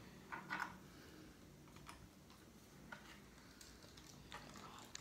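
Faint, scattered light ticks and taps of thin clear plastic screen sheets from a Kindle being handled, with a couple of slightly louder taps about half a second in.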